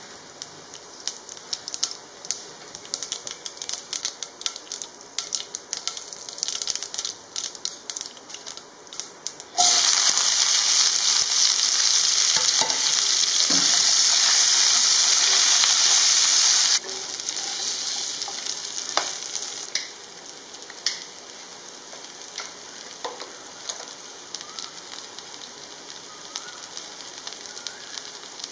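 Cumin seeds crackling in hot oil, a quick run of small pops. About ten seconds in, a loud steady sizzle as sliced brinjal (eggplant) fries in the pan; it cuts off suddenly some seven seconds later to a softer frying sizzle, with a wooden spatula stirring the pieces.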